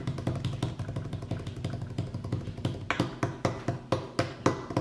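Suspense drum roll: rapid, even taps of hands drumming on a tabletop, with a few harder hits about three seconds in.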